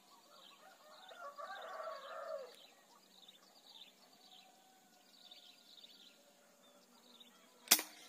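Bird calls with a louder burst of calling about a second in, over a background of repeated high chirps, then a single sharp crack of an air rifle shot near the end.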